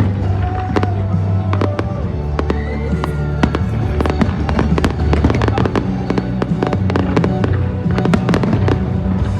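Fireworks display: a dense run of sharp crackling bursts and bangs, many per second, over the show's loud soundtrack music with steady low bass notes.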